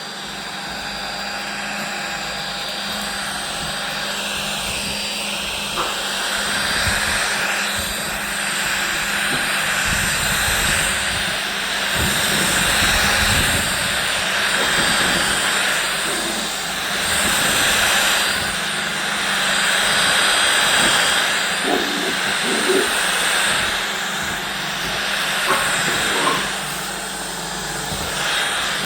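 Vacuum cleaner running: a loud steady whooshing hiss that swells and eases as it moves about, with a few brief sharp sounds in the last third.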